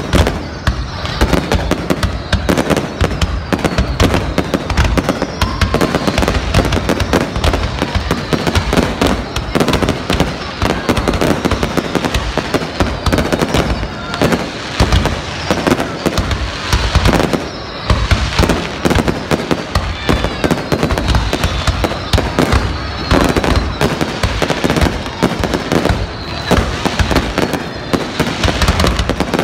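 A dense aerial fireworks display: shells bursting in rapid, overlapping bangs, with hardly a pause between them.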